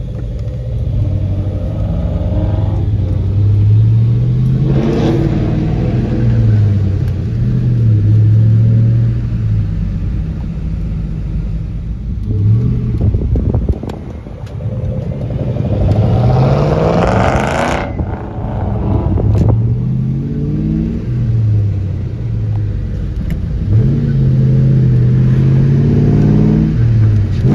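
Ford Mustang engine accelerating through the gears, heard from inside the car's cabin. The pitch climbs and then drops back at each shift, over and over, with a loud rising rush about two thirds of the way through.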